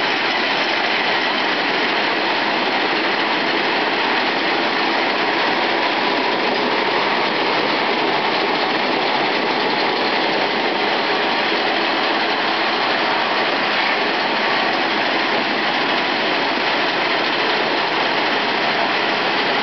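Peanut sheller machine running steadily, its belt-driven shelling drum rattling as peanuts pass through. The noise is loud and even and does not change.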